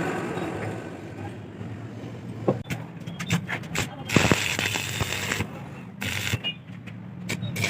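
Metal clicks and knocks of hub repair work, then two loud bursts of a power tool with a steady high whine, starting about four seconds in and again about six seconds in.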